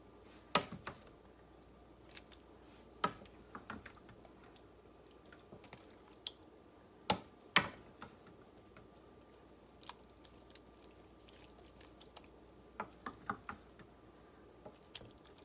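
A utensil knocking and scraping against a casserole dish while a wet, chunky ground-beef and bean mixture is spread over tortillas, with soft squishing in between. The knocks come irregularly, a pair about seven seconds in being the loudest.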